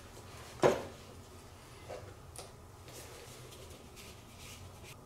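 Metal parts being handled on a workbench: one sharp knock about half a second in, then a few light clicks and faint rustling as the screws of an ATV carburetor's top cover are undone with a small screwdriver.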